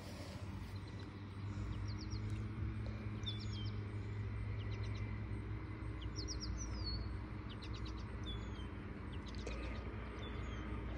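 Birds chirping: short quick runs of three or four high notes and downward-sliding calls, repeating every second or so, over a low steady rumble.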